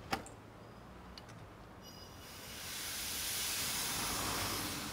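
A sharp click, then high-pressure air from a compressed-air bottle hissing out, building over about a second and holding steady and loud: air escaping at a leaking adapter fitted to the breech of a muzzle-loading rifle.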